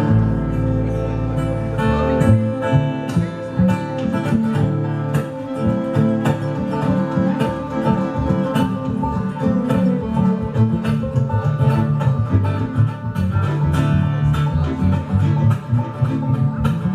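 Bluegrass string band playing a fast instrumental tune live, with picked banjo and guitar, fiddle, and a driving low bass line.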